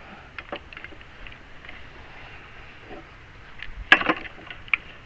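Homemade bee-box lifter being lowered under load: scattered light clicks and knocks from the mechanism, with a louder clatter of knocks about four seconds in.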